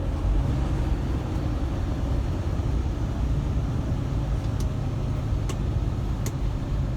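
Steady low drone of a semi truck's diesel engine and road noise at highway speed, heard inside the cab, with three faint short clicks in the second half.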